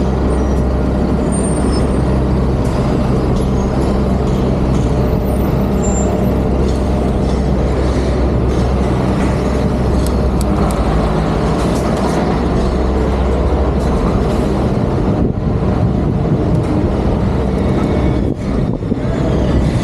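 City street traffic with a heavy vehicle's engine running close by: a steady low hum that drops away about three-quarters of the way through, over constant road noise with a few sharp clicks.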